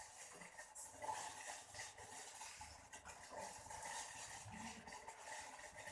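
Faint clinks and scrapes of a teaspoon spooning brown sugar into a pot of boiling water.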